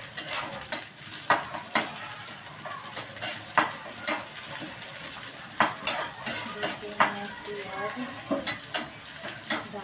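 Chopped onion sizzling in hot oil in a black kadhai, stirred with a steel spatula that scrapes and clinks sharply and irregularly against the pan.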